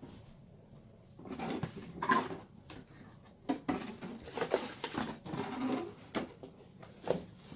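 Irregular handling noises of a tool and its packaging: rustling and scraping with several light knocks and clicks.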